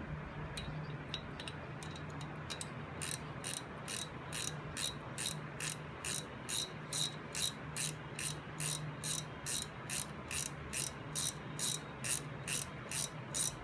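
Ratchet wrench clicking as it runs rocker box bolts down by hand: a few faint clicks at first, then from about three seconds in a steady, even train of about two to three clicks a second. A steady low hum runs underneath.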